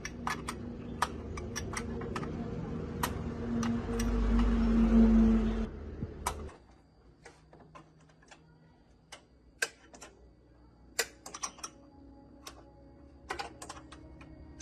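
Scattered sharp clicks and taps of tools being handled in a workshop, over a steady machine hum that swells, then cuts off about six and a half seconds in.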